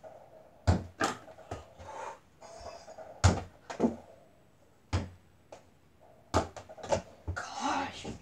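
Irregular knocks and thuds, about a dozen spread unevenly: a mini basketball hitting an over-the-door hoop's backboard, rim and the door, mixed with feet landing on the floor.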